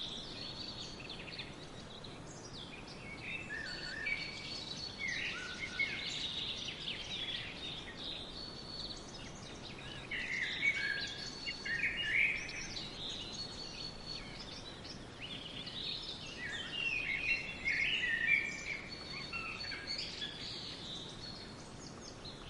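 Songbirds singing: quick chirps and warbled phrases over a faint steady background, with louder bouts of song coming and going every few seconds.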